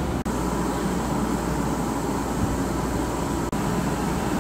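Steady mechanical rushing noise with a low hum underneath. It cuts out twice for an instant.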